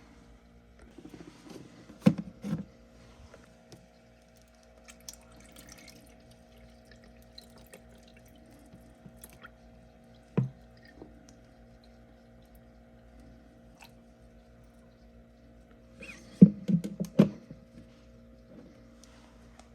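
Freezer frost crunching in a few scattered crisp bursts, with a quick cluster of crunches near the end, over a steady low hum.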